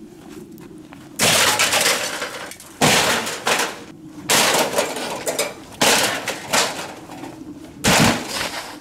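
Metal mesh table clanking and clattering as it is hauled across the ground and set upright: five loud metallic crashes, each fading out over about a second.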